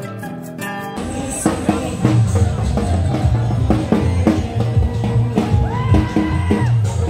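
Soft instrumental music that about a second in gives way to louder music with a heavy, steady drum beat and a singing voice.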